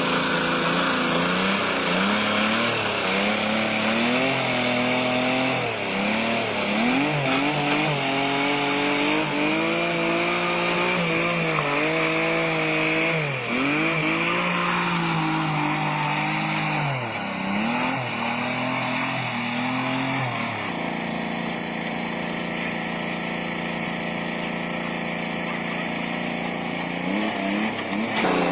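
A motor running, its pitch dipping sharply and recovering again and again, then holding steady for the last several seconds.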